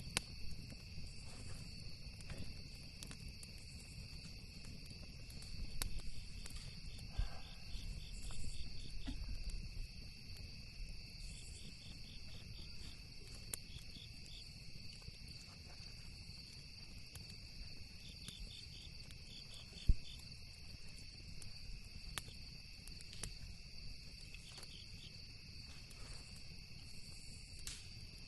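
Crickets trilling steadily with pulsed chirps, over the scattered sharp pops and crackles of a campfire, one pop much louder than the rest about two-thirds of the way through, with a low rumble underneath.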